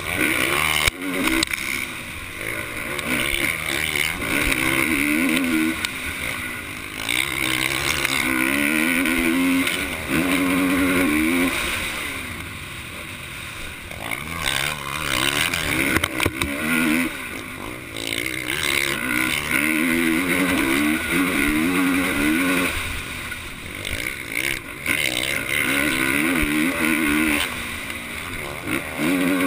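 450-class motocross bike's engine heard from a camera mounted on the bike, revving up in repeated rising surges and dropping between them as the rider accelerates, shifts and rolls off through the corners. The revs ease off for a few seconds about twelve seconds in and again around twenty-two seconds.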